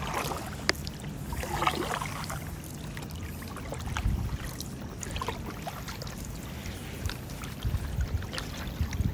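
Stand-up paddleboard paddle strokes: the blade dips and pulls through calm water with small splashes and drips. Under them is a low rumble on the chest-mounted phone's microphone, with a few low thumps.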